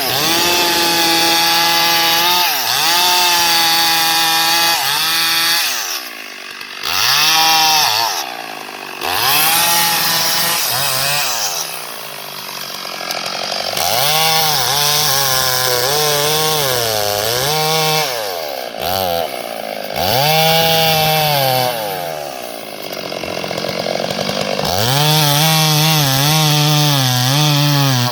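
Chainsaw cutting wood. The engine note keeps sagging as the chain bites and climbing back up, with several short drops in level.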